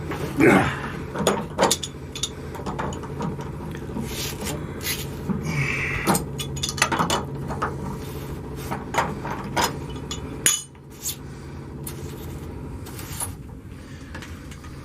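Metal clinks, knocks and scraping as a water heater's drain valve is worked loose and unscrewed by hand. Under them a steady low hum runs until it stops about ten and a half seconds in.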